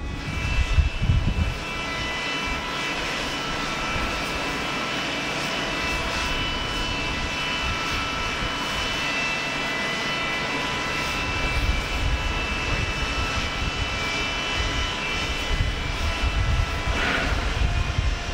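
Boeing 747-8F freighter's four GEnx jet engines running at low thrust as it taxis for departure, a steady whine over jet noise, with low rumbling swells at the start and again from about two-thirds of the way in.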